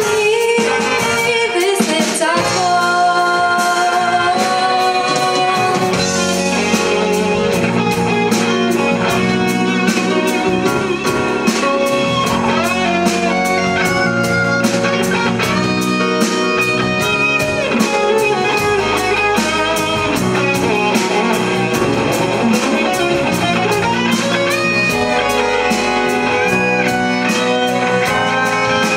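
A live band playing an instrumental passage of a pop song: a drum kit keeps a steady beat under bass guitar, keyboards and a brass section.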